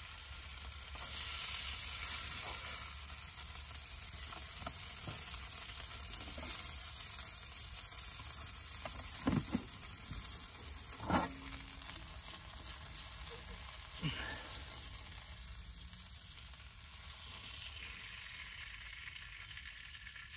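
Pork chops sizzling in a frying pan, a steady hiss that swells about a second in and dies down near the end, with a few short knocks partway through.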